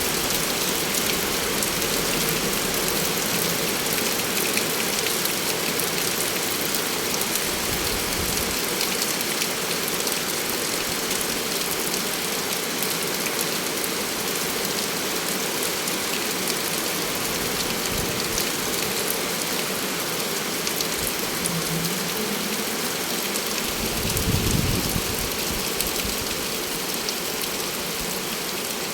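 Heavy rain falling steadily, a dense even hiss of drops with fine crackle throughout. About 24 seconds in, a brief low rumble swells and fades under the rain.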